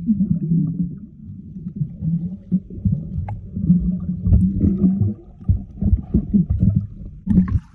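Muffled underwater sound of a snorkeler moving through shallow water: low, uneven rumbling and gurgling of water and air bubbles, with all the higher sounds cut off.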